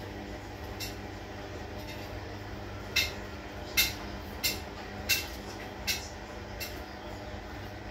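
Five light clinks, about two-thirds of a second apart, as snacks are served from a baking tray onto a plate with tongs, over a steady low kitchen hum.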